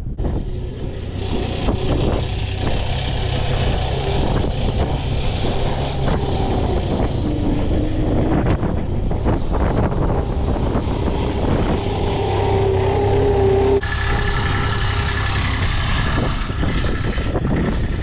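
Skid-steer loader's engine running as the machine drives out, a steady hum with a whine that shifts in pitch. The sound changes abruptly about fourteen seconds in.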